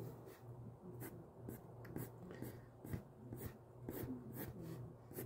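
Pencil lead scratching on paper in short, quick sketching strokes, about three a second, faint.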